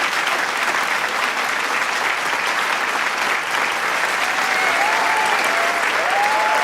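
Large crowd applauding, dense steady clapping. From about four and a half seconds in, a few voices start cheering and whooping over the clapping.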